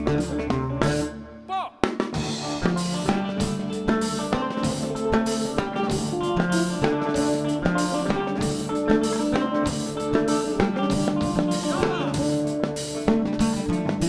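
Live band music: a short break about a second and a half in, then the drum kit comes back in with snare and rimshot hits, under electric guitars and a plucked oud.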